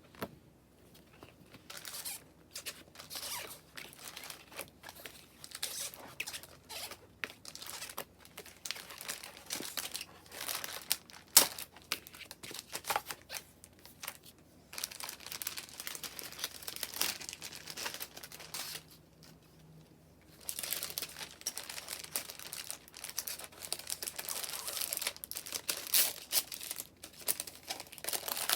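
Packaging wrapper being crinkled and torn open by hand: dense, irregular crackling, with one sharp snap near the middle and a short lull about two-thirds through.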